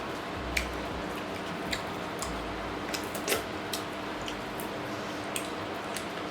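Eating sounds of a mukbang: irregular wet smacking and clicking of mouth and chewing close to the microphone, over a steady low hiss and faint hum.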